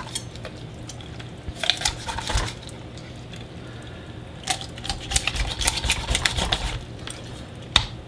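A sharp kitchen knife cutting the backbone out of a raw whole chicken, crunching through bone in crackling runs of small clicks: one run about a second and a half in, a longer one from about halfway, and a sharper snap near the end.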